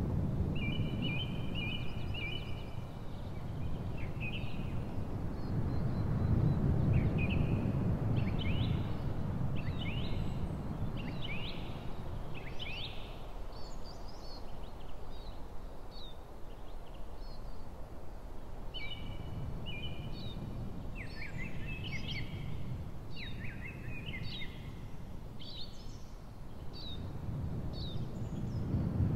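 Songbirds singing repeated short chirping phrases and quick trills, over a low outdoor rumble that swells and fades.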